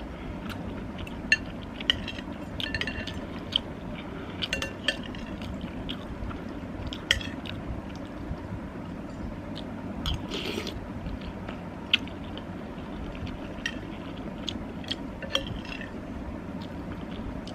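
Spoon clinking against a bowl of pasta soup while eating, a dozen or so scattered clinks with a brief ring, with a short noisy burst about ten seconds in, over steady low background noise.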